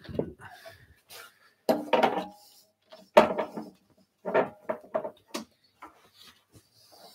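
Steel woodturning lathe chucks being handled and swapped on the headstock spindle: a scattered run of metal clunks and clinks, a few ringing briefly.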